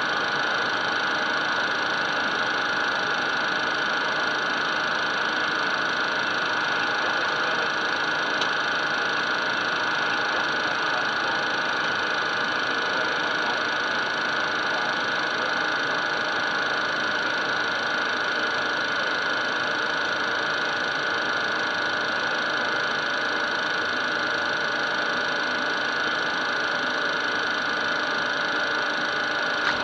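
Steady cockpit noise of a Cessna Citation business jet on final approach: an even hiss of engines and airflow with a constant high whine on top.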